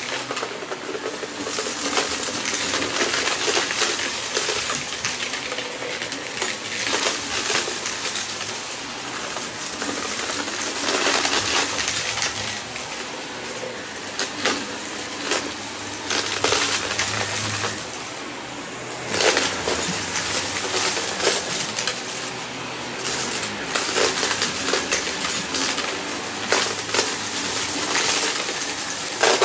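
Shark upright vacuum running over a shag rug, its motor humming steadily under constant crackling and rattling as small crunchy debris is sucked up through the floor head into the dust cup. A few louder rattles come in the second half.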